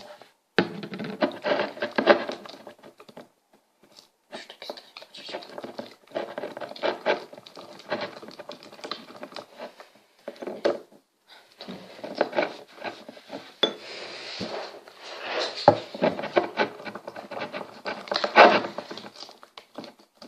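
Sticky slime of glue and jelly being stirred and squished in a container: irregular wet clicking and scraping in bursts of a few seconds, with short pauses between them.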